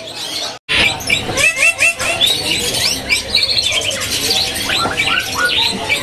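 Caged long-tailed shrike (pentet) in full song: a fast, busy run of varied chirps and short rising whistles. The sound cuts out for an instant about half a second in.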